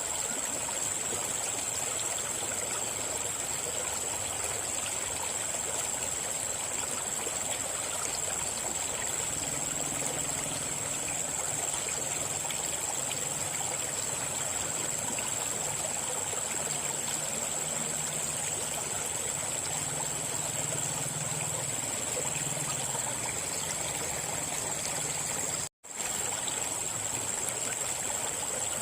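River water flowing steadily over stones, with a steady high-pitched whine above it. The sound cuts out completely for an instant near the end.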